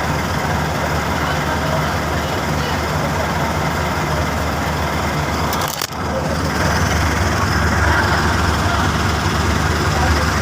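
Motor vehicle engine running steadily with a low hum, under a dense wash of road noise; the sound dips briefly about six seconds in.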